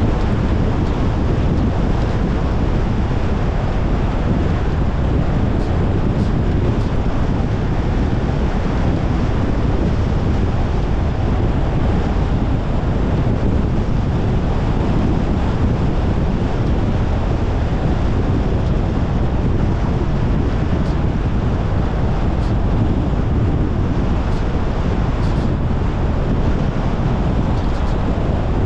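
Steady road and wind noise of a Tesla Model Y Long Range driving at a constant pace: a loud, even rush of tyres and air with no engine note.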